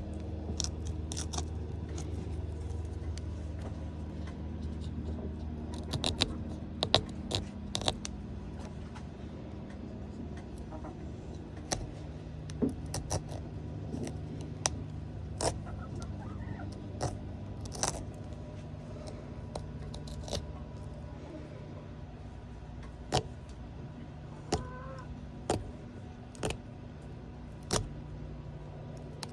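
Pumpkin being carved by hand: irregular sharp clicks and taps of the knife and tools against the pumpkin and table, over a steady low hum.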